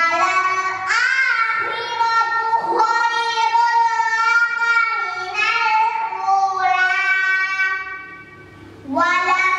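A young girl chanting a Quran recitation from memory in a melodic style, with long held notes. She pauses for breath about a second before the end and then starts the next phrase.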